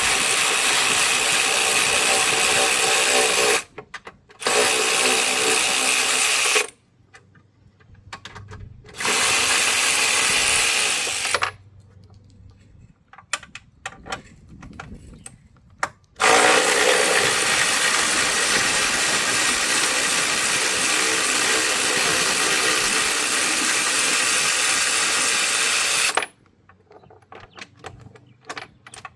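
Cordless power tool spinning out the 13 mm bolts that hold a Ford Super Duty's battery tray to the fender. It runs steadily in four runs, the last about ten seconds long, with small metal clicks in the pauses between them.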